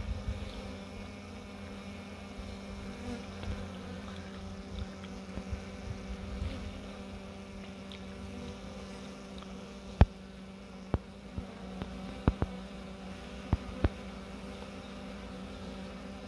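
Honeybees buzzing in flight, a steady hum. From about ten seconds in comes a cluster of half a dozen sharp clicks, the loudest sounds.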